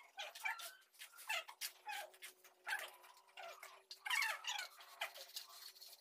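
A dog whining and yelping in many short calls, each falling in pitch, with faint clicks between them.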